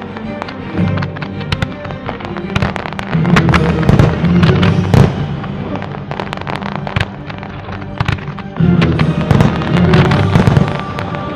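Fireworks of a pyromusical display going off in quick succession, many sharp bangs and reports over the show's accompanying music. Two denser, louder barrages come about three seconds in and again about three-quarters of the way through.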